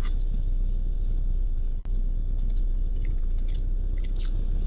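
Close-up chewing and mouth sounds of someone eating a spoonful of tiramisu, with a few faint clicks, over a steady low hum.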